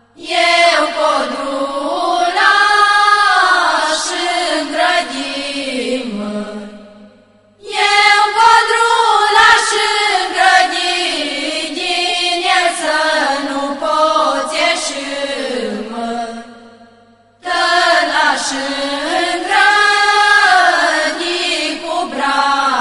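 Girls' and women's voices singing a traditional Romanian folk song without instruments, in long phrases whose pitch slides and bends, with two short breaks for breath.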